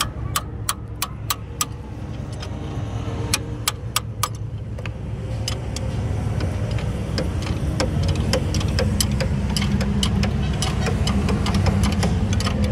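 Sharp metallic clicks of spanners working the bolts of a truck's torque rod mounting, a few spaced clicks at first, then quicker, denser clicking in the second half, over a steady low engine rumble.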